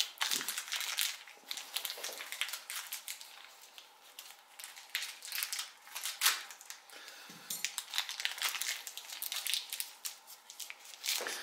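Small plastic parts bag crinkling and rustling as it is handled, in quick irregular bursts.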